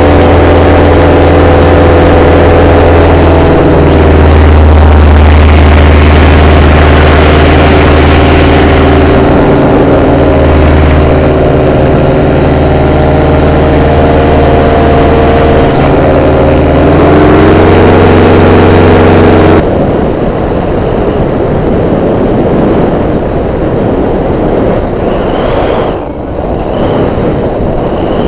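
Vittorazi Easy 100 single-cylinder two-stroke paramotor engine and propeller running steadily, rising briefly in pitch a little over halfway in, then stopping abruptly. After that, only wind rushing over the microphone is heard.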